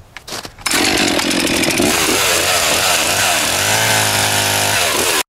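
Stihl two-stroke chainsaw running at full throttle, its bar cutting down into snow-covered lake ice. It comes in suddenly under a second in; the engine pitch dips and rises under load, then holds steady, and the sound stops abruptly near the end.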